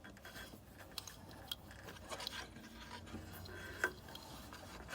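Faint handling noises from threading a serger: small clicks and rubbing of thread and fingers against the machine's parts.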